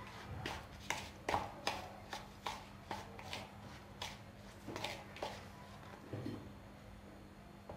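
A spoon stirring a stiff, crumbly flour-and-curd mix in a bowl, knocking and scraping against the bowl about two or three times a second, the strokes thinning out in the last couple of seconds.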